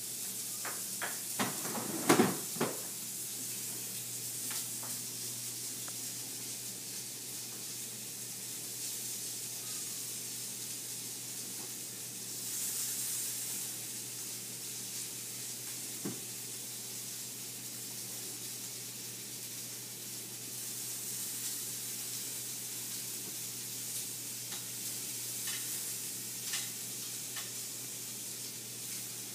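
Steak on the grill and sautéed garlic potatoes sizzling steadily in hot oil. A few sharp clicks and one louder knock of utensils come about two seconds in, with lighter ticks near the end.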